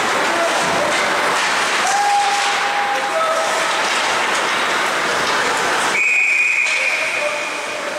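Ice hockey referee's whistle: one steady blast about six seconds in, lasting a second and a half, signalling a stoppage of play after a scramble at the net. Before it, a steady rink din of skating and crowd noise.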